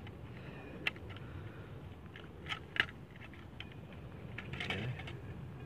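Handling noise: a few short sharp clicks and light crackles, two close together near the middle and a cluster near the end, over a low steady rumble.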